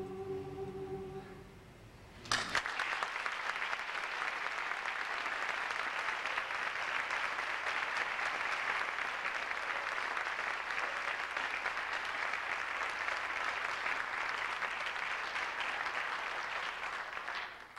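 The last held note of the music fades out, and about two seconds in the audience starts applauding, a steady clapping of many hands that goes on for some fifteen seconds and stops just before the end.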